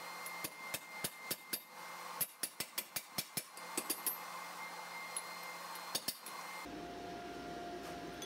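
Hand hammer striking a punch to drive a hole through a hot steel tong jaw on an anvil: a run of sharp metal-on-metal blows, quickest in the middle at about four or five a second, ending about six seconds in. A faint steady hum follows near the end.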